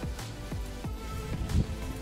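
Background music with steady held notes and a regular beat of about two strikes a second.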